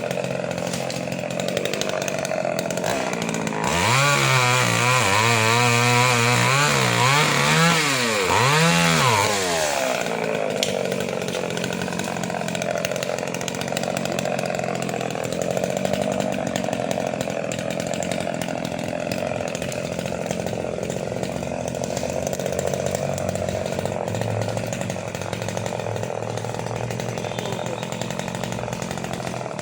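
Chainsaw engine running; about four seconds in it gets louder and its pitch swings up and down several times as the throttle is worked, then it settles back to a steadier, lower running sound.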